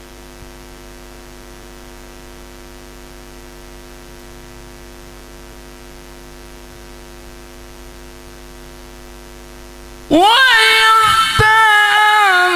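Steady electrical mains hum through the sound system during a pause in Quran recitation. About ten seconds in, the male reciter's amplified voice enters loudly, sweeping up in pitch into a held, ornamented melodic phrase of tilawah.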